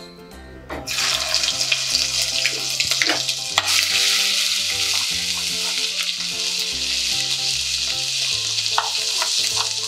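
Ginger-garlic paste sizzling in hot groundnut oil with cumin seeds in a clay pot as it is stirred with a spatula. The sizzle starts about a second in, once the paste hits the oil, and then stays steady, with a few small clicks.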